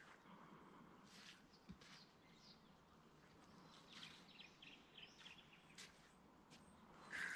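Near silence: faint outdoor quiet with a few scattered, faint bird chirps.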